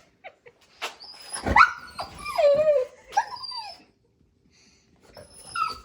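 Golden retriever "talking": drawn-out whining vocalisations that slide up and down in pitch, three in a row starting about a second and a half in, after a few short clicks. A pause follows before it starts up again near the end.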